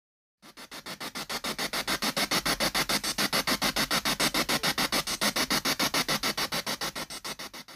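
Spirit box sweeping through radio frequencies: static chopped into rapid, even pulses about eight times a second. It fades in about half a second in and fades out at the end.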